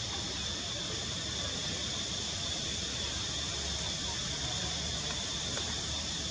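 Steady outdoor background: a constant high-pitched hiss over a low rumble, with faint distant voices.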